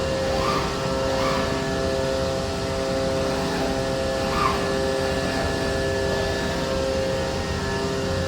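CNC router running: a steady machine hum with several fixed, unchanging tones, and a few brief higher sounds over it.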